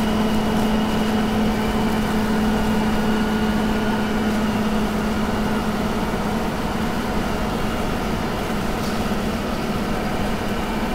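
Toyota Land Cruiser 60 Series driving at highway speed, heard from inside the cabin: a steady engine drone over road noise, its pitch easing a little lower about halfway through.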